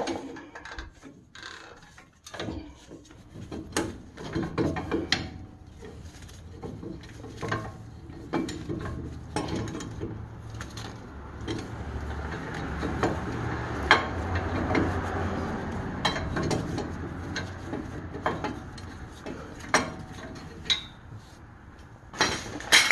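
Scattered clicks and knocks of hand tools working on a 2006 Ford F-150's front brake caliper, with a steadier low noise through the middle stretch.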